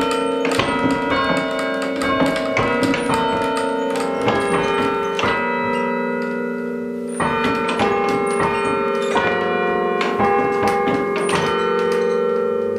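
Church carillon bells played by hand from a baton keyboard, ringing out a tune: one note struck after another, each ringing on and overlapping the next. The playing grows louder about seven seconds in.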